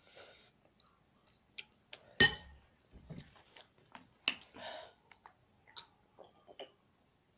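A short slurp of noodles, then a sharp clink about two seconds in, the loudest sound, followed by scattered clicks and a brief crinkle of a plastic water bottle being opened before a drink.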